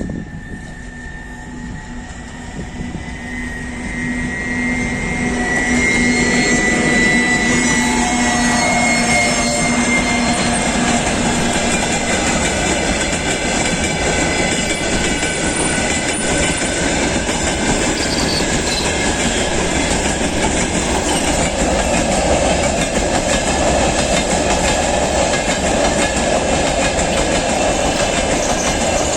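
Rail vehicle running on the track, its wheels clattering over the rail joints. It builds up over the first several seconds, then runs steadily. A high steady tone and a low hum fade out about twelve seconds in.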